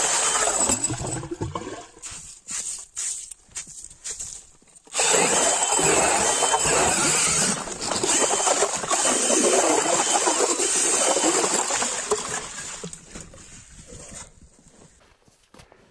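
Power drill turning a hand ice auger as it bores through lake ice, the blades grinding and churning up ice chips and slush. It runs for about a second and a half, stops and starts in short bursts, then runs steadily from about five seconds in and fades out near the end as the hole is finished.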